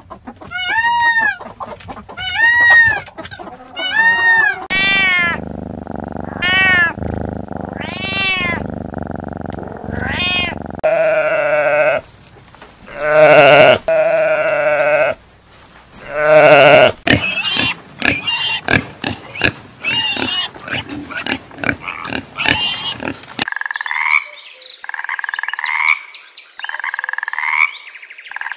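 A run of animal calls. First a peacock calls over and over, loud cries that rise and fall in pitch. Then a sheep bleats, and near the end a frog croaks in a regular series, about one call every second and a half.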